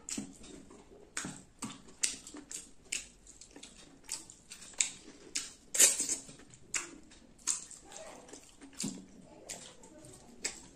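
Close-miked wet mouth sounds of eating chicken curry and rice by hand: lip smacking and chewing in irregular sharp clicks, one or two a second, the loudest about six seconds in.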